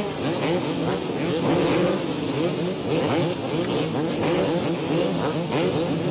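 A field of motocross bike engines revving together on the start line, throttles blipped over and over in many overlapping, rising bursts of pitch.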